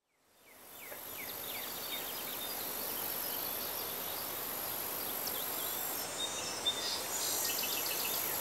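Outdoor ambience fading in over about the first second: a steady high-pitched insect drone, many short falling bird chirps, and a low haze of distant city noise.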